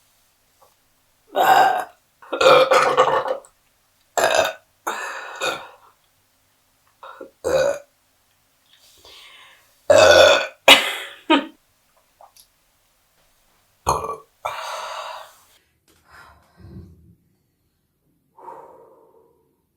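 A woman burping repeatedly, about nine burps in all. Several are long and loud, the loudest about ten seconds in, and the last few are shorter and quieter.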